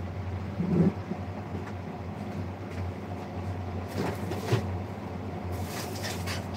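Kitchen noise under a steady low hum: a thud just under a second in, knocks and clatter around four seconds in, and a hiss near the end.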